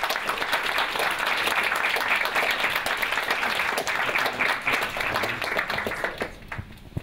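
Audience applauding: dense hand clapping that thins out and fades about six seconds in.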